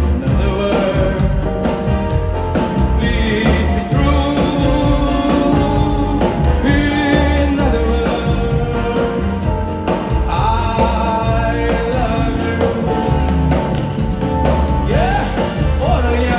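A live pop band playing with a lead singer, amplified through a theatre's PA, over a steady pulsing bass beat.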